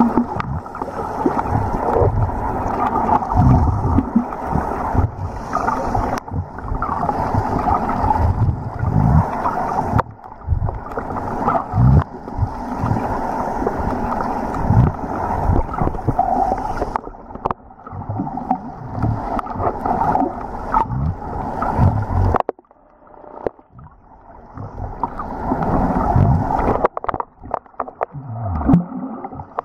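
Muffled underwater water noise picked up by a submerged camera, with irregular low thumps and gurgles. It drops away sharply for a couple of seconds about three-quarters of the way through, then builds again.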